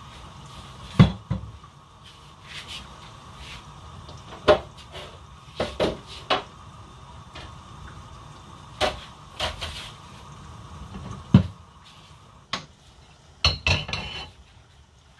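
Kitchenware being handled at the counter: pots, dishes and utensils knocking and clattering about eight times at irregular intervals, with a few quick clinks close together near the end, over a steady low hum.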